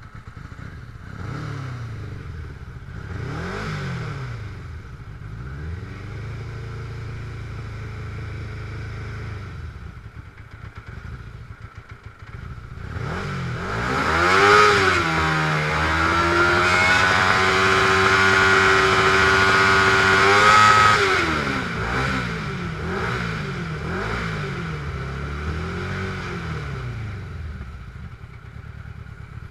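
Dune buggy engine revving in short blips, then climbing to high revs and holding them for several seconds around the middle as it pulls away, before dropping back to a few blips near the end.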